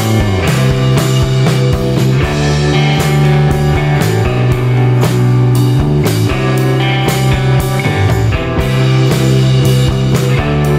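Background rock music with electric guitar and a steady drum-kit beat.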